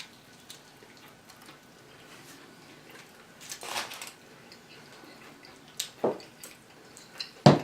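Close-up eating sounds: a person biting into and chewing fried chicken wings, with a few sharp crunches or clicks and a brief louder crunch near the middle.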